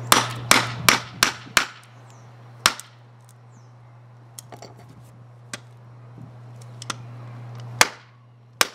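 Hammer striking the handle of a screwdriver wedged into a Magic 8 Ball's plastic shell, trying to crack it open: five quick sharp blows, then one more, then a few faint taps, with two more sharp knocks near the end. A steady low hum runs under the blows until just before the last knock.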